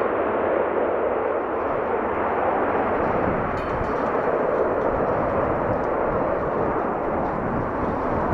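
Airbus A321 jet airliner's engines running as it rolls along the runway: a loud, steady rushing noise with no distinct tones or hits.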